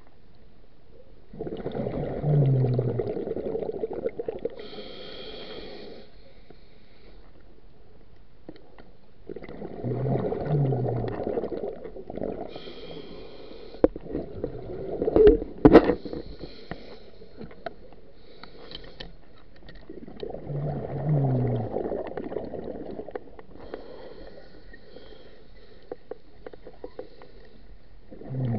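Scuba diver breathing through a regulator underwater: three bubbling exhalations about ten seconds apart, each followed by the fainter hiss of an inhalation. A few sharp knocks near the middle are the loudest sounds.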